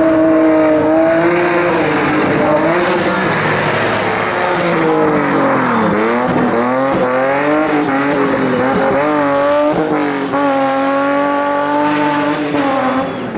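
Rally car engine revving hard as the car slides through a corner, its pitch rising and falling with throttle and gear changes, dipping sharply about halfway through and climbing again.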